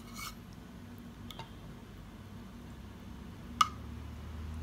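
A few light taps and then one sharp clink of tableware about three and a half seconds in, over a faint steady hum.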